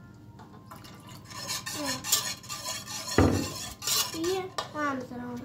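Wire whisk stirring thinned strained yogurt in a steel pot, clinking and scraping against the metal sides, with one louder knock about three seconds in.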